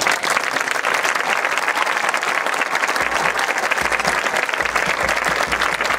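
Audience applauding: dense, steady clapping from a large crowd in the stands.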